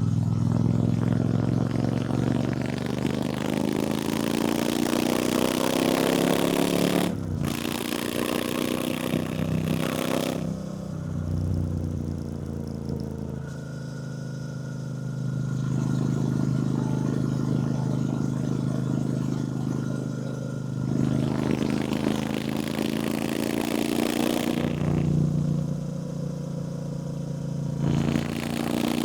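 Triumph Bonneville T120's 1200 cc parallel-twin engine pulling through the gears while riding, its pitch rising and then dropping at gear changes about 7 and 10 seconds in, holding steadier for a while, then climbing again with another shift near the end. Wind rushes over the microphone throughout.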